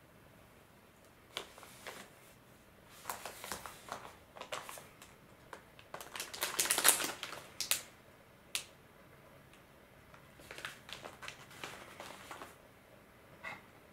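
Glossy plastic furikake packet being handled: crinkling and rustling with sharp clicks, in irregular bursts that are loudest about six to seven seconds in.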